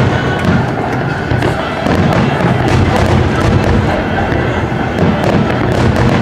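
Aerial firework shells bursting and crackling in quick succession, one report after another with no gap, during a fireworks display.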